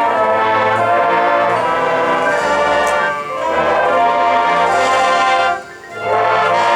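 High school marching band's brass section playing loud sustained chords. The sound drops away briefly about five and a half seconds in, then the chord comes back in.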